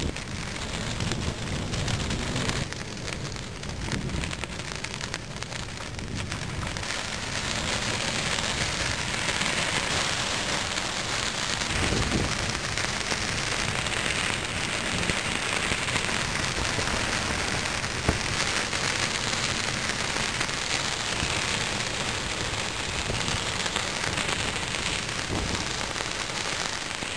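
Heavy rain from a passing squall, a dense steady hiss that grows heavier about seven seconds in, with a few sharp ticks from single drops or gear.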